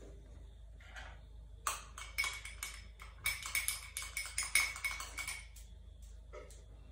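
A metal teaspoon clinking and scraping against a small glass in a quick run of light, ringing taps, starting about a second and a half in and stopping a little past the middle.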